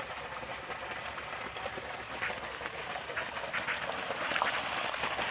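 Water from a solar-powered submersible well pump gushing out of the discharge pipe and splashing onto the ground in a steady rush, with a few short high chirps over it.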